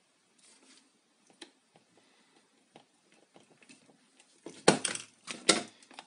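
Handling noise from an opened plastic hair dryer body and a soldering iron being moved over a rubber work mat: a few faint ticks, then two loud spells of clattering knocks about a second apart near the end.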